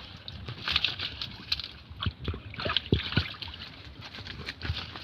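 Shallow water sloshing and splashing irregularly, with scattered short knocks, as a bamboo fish trap is worked into place in the water.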